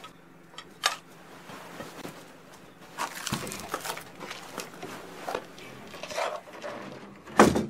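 Hurried handling of paper and small objects: a sharp click about a second in, then rustling and light knocks, and a short loud thump near the end.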